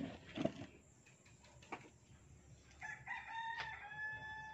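A rooster crowing, one long held call starting about three seconds in. Two short knocks near the start are louder.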